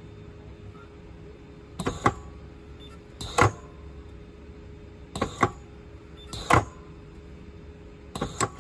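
Battery tab spot welder firing through its electrodes onto a nickel tab on a rechargeable cell, a series of sharp crackling snaps, several in quick pairs, about a second to a second and a half apart, over a faint steady hum.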